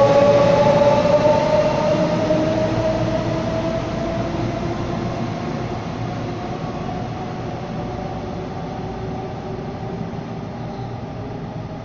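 Taiwan Railways EMU500-series electric multiple unit pulling away: its traction motors whine in a slowly rising pitch over the rumble of the wheels as it accelerates. The sound fades steadily as the train goes away.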